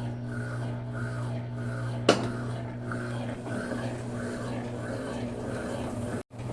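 Brastemp 12 kg washing machine running and making noise: a steady low hum with a rhythmic swish repeating about every two-thirds of a second, and one sharp knock about two seconds in. The sound cuts out briefly near the end.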